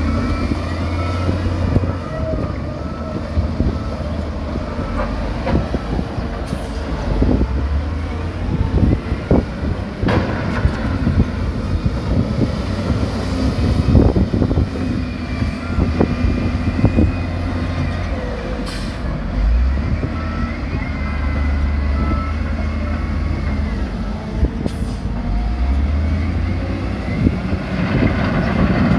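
Heavy diesel engines of dump trucks and a wheel loader running and swelling under load, with rock rattling and knocking as stone is dumped and pushed. A repeating high beep sounds near the start and again around the middle.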